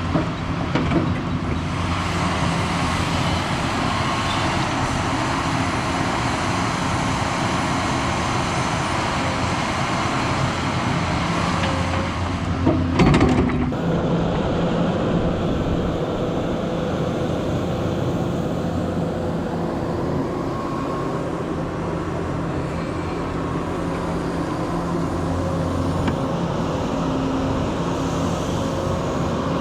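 Cat 320E excavator's diesel engine running steadily as it digs, with one brief loud clank about thirteen seconds in.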